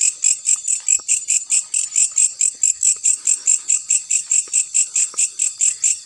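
An insect chirping in a fast, even rhythm of high-pitched pulses, about five to six a second.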